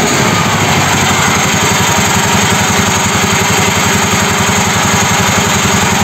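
Homemade mini tractor's engine running steadily with a fast, even low pulse, driving the hydraulic pump while the hydraulic control lever is worked to move the rear three-point hitch.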